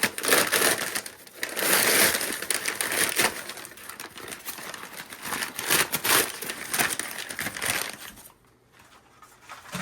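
Packaging crinkling and rustling as drum mounting hardware is unwrapped by hand, loudest about two seconds in and dying away near the end.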